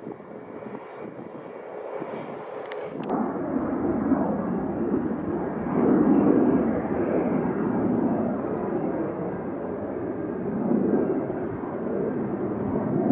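An airliner's engines, loud from about three seconds in just after a brief click, swelling and easing as the aircraft passes.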